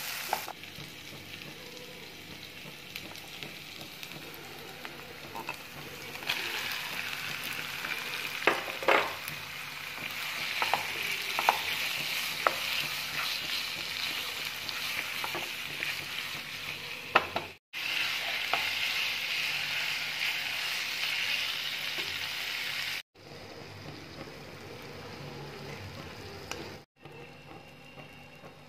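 Onion masala and prawns sizzling in oil in a kadai, stirred with a wooden spatula that knocks against the pan several times. The sizzle drops out briefly three times in the second half.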